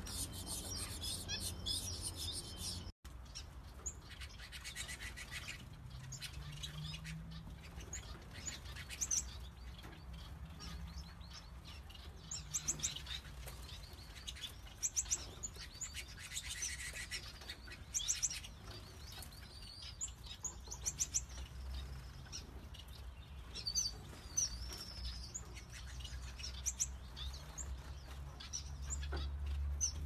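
Small aviary finches chirping: scattered short, high calls and quick trills, with the flutter of wings now and then.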